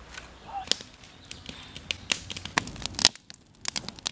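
Kindling fire crackling in a metal fire ring: split wood catching, with sharp, irregular pops and snaps and a short lull about three seconds in.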